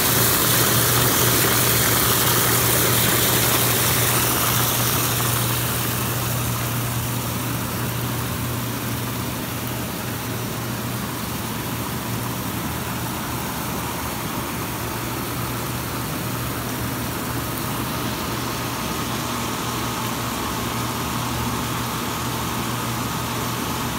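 Hot tub jets running: water churning and hissing with bubbles, over the steady hum of the jet pump motor. The sound drops a little in level about five seconds in, then holds steady.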